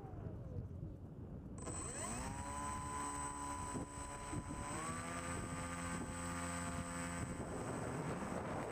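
FPV quadcopter motors and propellers whining, the pitch following the throttle. It falls at first, then rises about two seconds in and holds steady, steps up a little about five seconds in, and drops away near the end.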